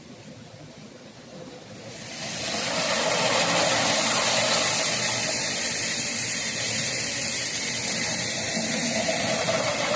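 Heavy rain coming down hard, a loud steady hiss that swells suddenly about two seconds in.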